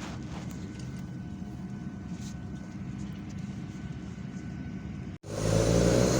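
Steady low engine drone of a vehicle in motion. About five seconds in it cuts suddenly to a louder engine sound.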